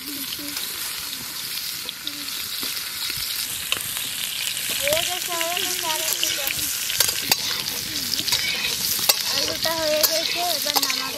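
Potato pieces frying in mustard oil in an aluminium wok, sizzling steadily, while a metal spatula stirs them and clicks and scrapes against the pan.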